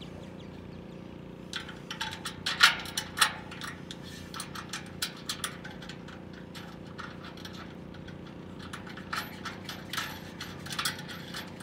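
Bolts being fitted by hand into an aluminum dock frame's support bracket: sharp metal clicks and clinks starting about a second and a half in, loudest soon after, with more near the end. A steady low hum runs underneath.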